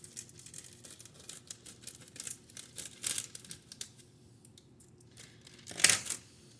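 Packaging crinkling and tearing as it is opened, a run of short, quick rustles with one louder burst near the end.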